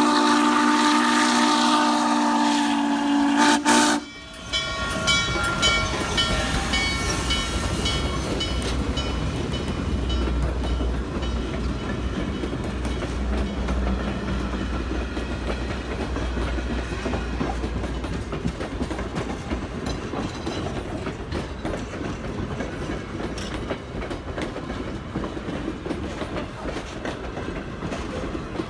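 A steam locomotive's chime whistle sounds a long steady chord that cuts off about four seconds in. After that, a train rolls past with a low rumble and wheels clattering over rail joints.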